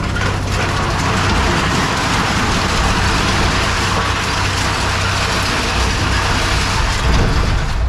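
Heavy scrap-processing machinery running steadily: a low engine drone under a loud, even noise with no breaks.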